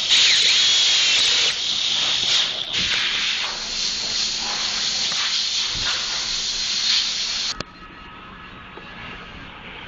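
A loud, steady hiss that cuts off abruptly about seven and a half seconds in, leaving a much quieter background with a faint steady tone.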